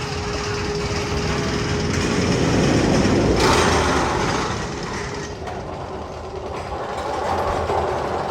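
Magnum XL-200 roller coaster train rumbling along its track, with a loud rushing hiss lasting about two seconds from roughly three and a half seconds in.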